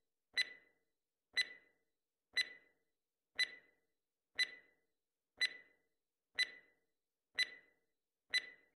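Countdown-timer sound effect: short, clock-like ticks, evenly spaced once a second, nine in all.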